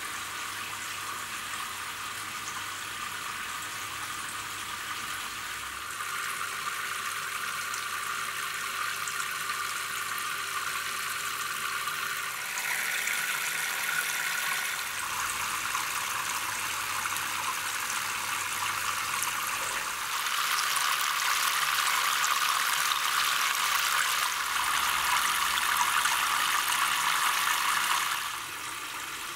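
Water of the Buddha Falls water feature falling in a thin curtain of streams down the carved Buddha face into its basin, a steady splashing trickle. It grows louder for a few seconds near the middle and for a longer stretch later on.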